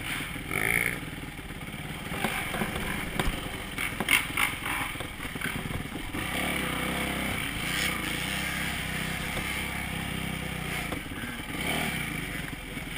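Dirt bike engine running as the bike is ridden along a dirt trail, with a cluster of sharp clattering knocks about four seconds in.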